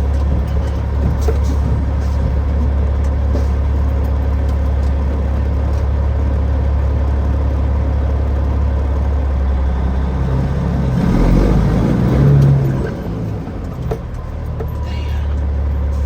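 Semi truck's diesel engine running under load as the stuck truck tries for traction. It swells and revs higher about eleven seconds in, then drops back after about two seconds.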